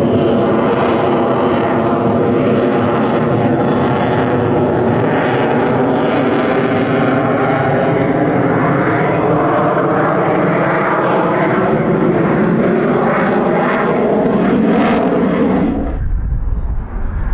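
F-22 Raptor's twin Pratt & Whitney F119 jet engines running loud and steady during a low pass, a dense noise with a droning pitched tone in it. About sixteen seconds in the higher part falls away and a deep low rumble takes over.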